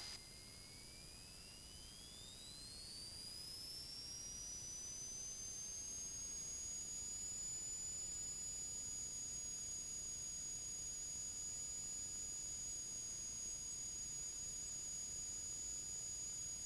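Faint high-pitched whine from a Subaru-engined RV-7A at full power for takeoff. It climbs steeply in pitch over the first several seconds as the engine winds up, then holds steady.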